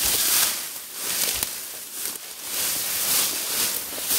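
Long grass rustling and swishing close by as feet push and trample through it, in repeated swells.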